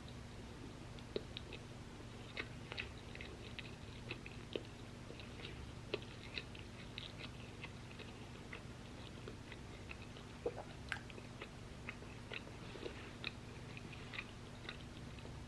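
Chewing and crunching crispy waffle fries: irregular small crunches throughout, with a few sharper ones, over a faint steady hum.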